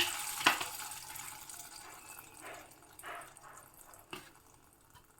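Hot mustard oil with whole spices sizzling in a kadai, loud at first and dying away to faint, with a few sharp clicks along the way.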